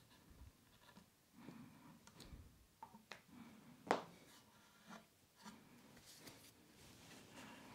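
Faint scratching of a pencil marking the wooden chair frame, with light hand handling and a sharp click about four seconds in as the pencil is laid on the workbench.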